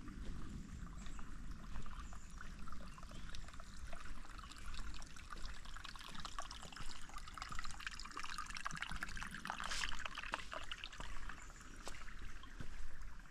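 Creek water trickling and splashing over rocks, a steady bubbling rush that swells a little about two-thirds of the way in.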